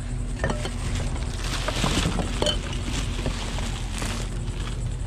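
Black plastic trash bags crinkling and loose items clicking and knocking as a hand rummages through a wheeled garbage bin, with a steady low hum underneath.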